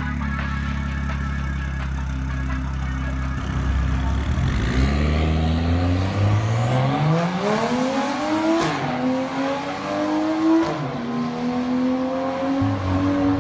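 Car engine idling steadily, then revving up and accelerating through the gears: its pitch climbs from about four seconds in, drops at a gear change a little past halfway, climbs again and drops at a second shift, then holds steady.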